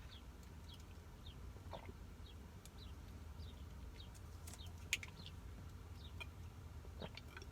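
A bird chirping over and over: short, faint, falling chirps about two a second. A few sharp clicks come through, the loudest about five seconds in.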